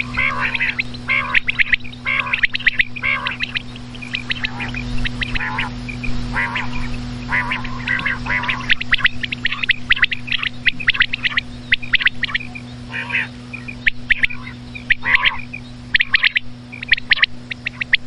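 Common quail calling: quick clusters of short, sharp notes repeated throughout, over a steady low electrical hum.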